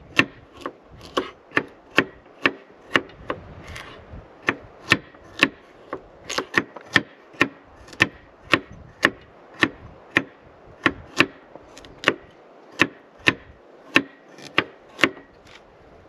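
Chef's knife chopping vegetables on a wooden cutting board: steady knife strikes against the board, about two a second, stopping shortly before the end.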